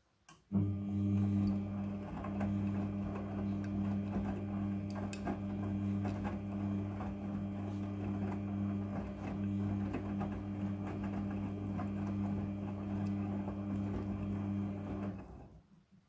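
Front-loading washing machine's motor turning the drum during the wash tumble: a steady motor hum with wet clothes and water tumbling and clicking inside. It starts about half a second in and stops suddenly about a second before the end, as the drum pauses between turns.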